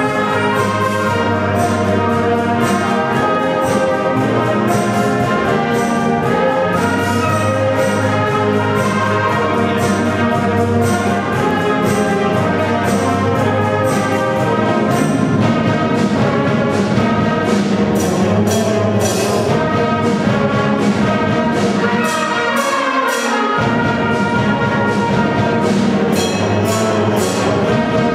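Wind band playing: brass and woodwinds in full chords over a steady percussion beat. The bass instruments drop out for a moment near the end.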